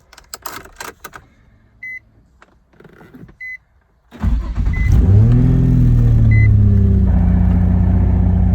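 Nissan 350Z's 3.5-litre V6 starting with the key on its new starter about four seconds in. It flares up, then settles into a steady idle. Before it there are handling clicks and a few short electronic beeps about a second and a half apart.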